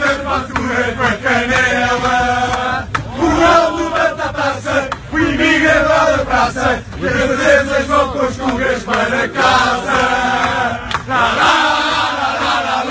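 A group of voices chanting a Portuguese football fan song, singing the wordless 'la la la' refrain, with a sharp hit every so often.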